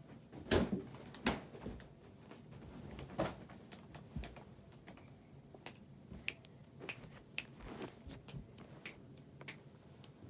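Irregular clicks and knocks: a few louder knocks in the first three seconds, then lighter, scattered ticks.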